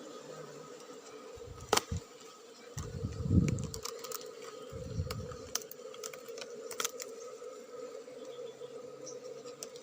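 Asian honey bees (Apis cerana) buzzing in a steady hum. A couple of sharp clicks come about two seconds in, and dull low thumps follow at about three and five seconds.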